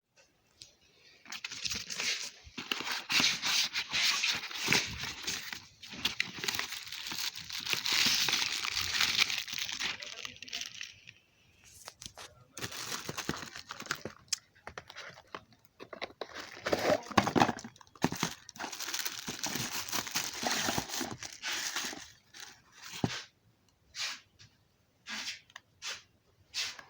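Packaging being torn and crinkled open, plastic wrap and cardboard rustling in long stretches, broken by short clicks and knocks as it is handled.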